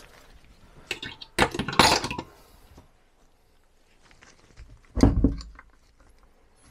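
Knocks and clinks of a Stromberg 175CD carburettor and a wrench being handled on a wooden workbench while a fitting is worked loose. A cluster of sharp knocks comes around one and a half to two seconds in, and a heavier thump about five seconds in.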